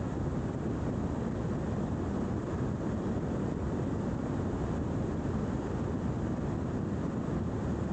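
Helicopter in flight, heard from a camera mounted on its outside: a steady rumble of rotor and engine mixed with wind rushing over the microphone.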